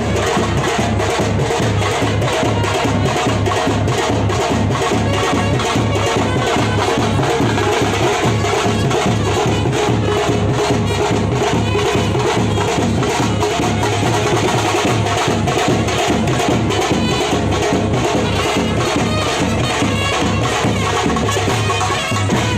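Music with a steady, driving percussion beat.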